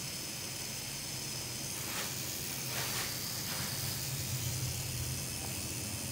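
Pen-style rotary tattoo machine running with a low steady hum while lining a tattoo, under a constant hiss. There are two soft brushing sounds about two and three seconds in.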